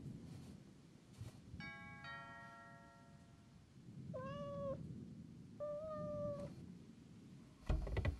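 A kitten meowing twice, each meow under a second long, after a two-note ringing chime; a loud thump near the end.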